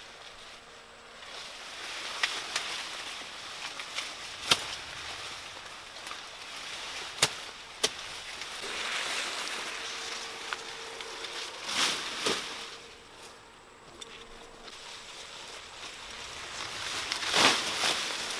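Rustling and handling noise with several sharp snaps or clicks scattered through it.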